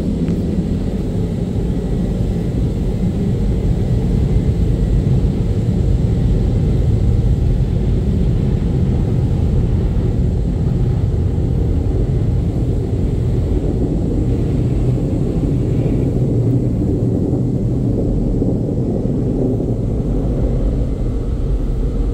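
Steady low rumble heard inside a car's cabin as the car drives slowly out of an automatic car wash.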